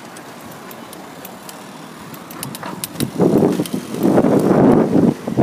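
Street noise heard from a moving bicycle, with a few light high clicks. About three seconds in, a loud rough wind buffeting on the microphone rises and takes over.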